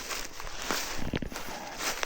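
A hiker's footsteps on the forest floor of a steep slope: a few separate scuffing, crunching steps.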